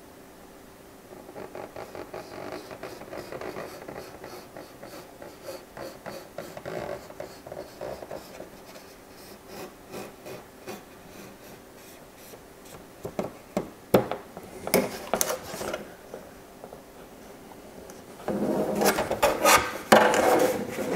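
Hobby-knife blade scoring a clear plastic RC car body along a tape line, a run of short scratchy strokes. Near the end comes louder rustling and flexing of the plastic shell as it is lifted and turned.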